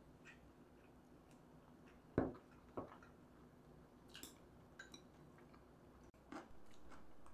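Tableware sounds during a meal: two sharp knocks about two seconds in as a plate is set down on the table, then scattered small clicks of chopsticks against dishes, over a faint steady hum.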